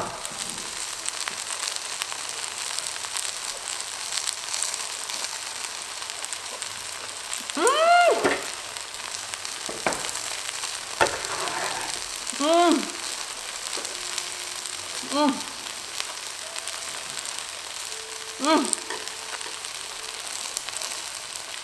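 Scallion pancake sizzling steadily in oil in a cast-iron skillet still on low heat. Over it come four short rising-and-falling "mmm" hums from someone eating, and a couple of sharp clicks.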